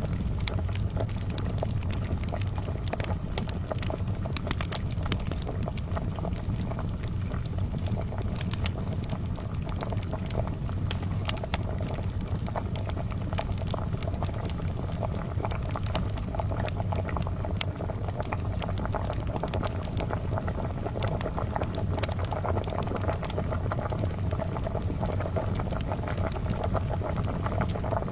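A kettle boiling steadily with a low bubbling rumble, over frequent sharp crackles from a charcoal fire.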